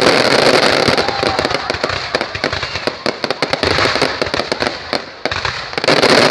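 Fireworks going off in a dense, continuous barrage of rapid cracks and bangs. It eases slightly about five seconds in, then swells again near the end.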